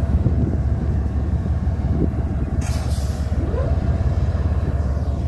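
BNSF diesel locomotive running with a steady low rumble, and a short hiss of air about two and a half seconds in.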